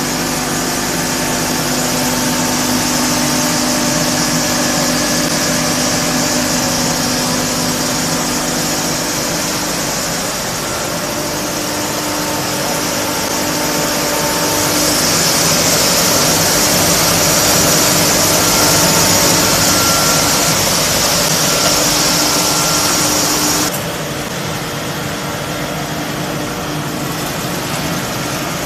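Wood sawdust pellet production line running: a loud, steady machine hum with several steady tones and a strong high hiss. About three-quarters of the way through, the hiss cuts off suddenly and the noise becomes quieter.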